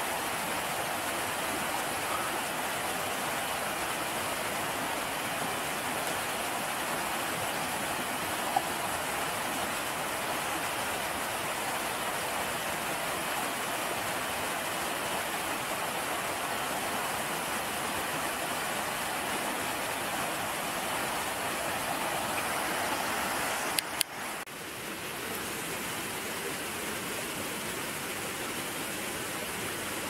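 Steady rushing of flowing water. A sharp click comes about 24 seconds in, after which the rush is a little quieter and duller.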